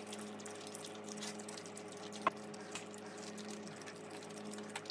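Close-up eating sounds: slurping stir-fried instant noodles and chewing, with many small wet mouth clicks and one sharper click about two seconds in, over a steady low hum.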